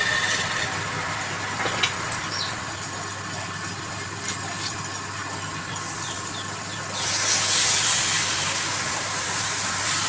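Wood lathe running with a steady motor hum while a turning tool cuts the spinning wood with a hiss, the cut growing louder about seven seconds in.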